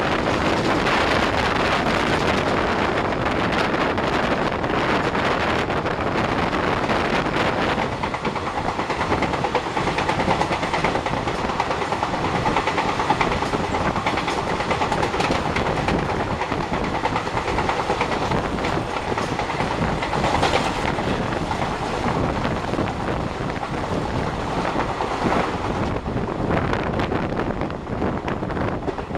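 Indian Railways express passenger train at speed: coaches rumbling and clattering over the rails, with wind on the microphone. It is heard partly from the open doorway of a moving coach and partly beside the track as the coaches rush past.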